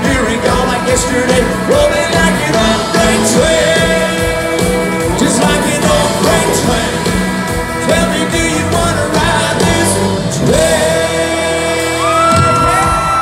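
Live country band playing loud, with electric guitars, drums and fiddle. Several notes slide up in pitch and hold, and near the end a long higher note slides up and is held.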